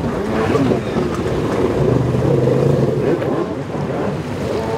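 Stand-up jet ski engine revving, its pitch rising and falling as the rider throttles through freestyle moves, over the hiss of water spray.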